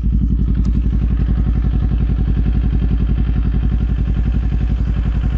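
Kawasaki Z400's parallel-twin engine idling steadily with an even, rapid exhaust pulse.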